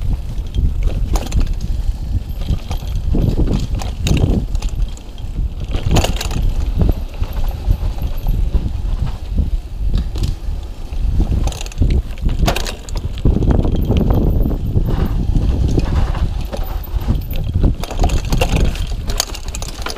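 Mountain bike rolling fast down a rough dirt trail: a steady low rumble of tyres and wind on the microphone, with frequent knocks and rattles as the front suspension fork and frame take the bumps.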